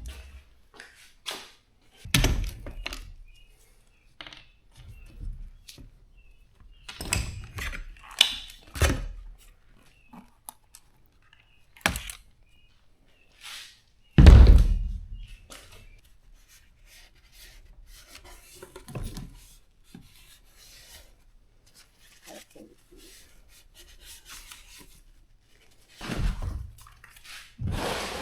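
Scattered knocks and thuds from hands handling dishwasher parts and tools, with a heavy thump about fourteen seconds in.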